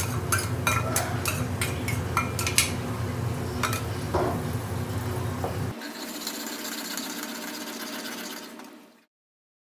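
A metal spoon clinking and scraping against a small metal bowl and the pan's rim as garlic-ginger paste is knocked into frying onions, over a steady low kitchen hum. About six seconds in the sound changes abruptly to a steadier hiss, which fades and cuts out shortly before the end.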